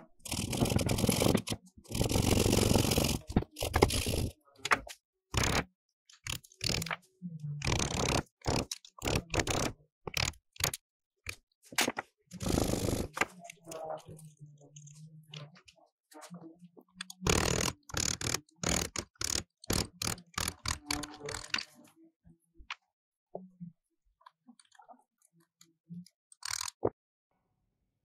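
Hand tools working a rusty forged iron ring and the old wooden screwdriver handle under it. It starts with loud back-and-forth hacksaw strokes of about a second each, then turns to many short scraping and cutting strokes of a carving chisel in the wood. In the last several seconds it thins to scattered light clicks.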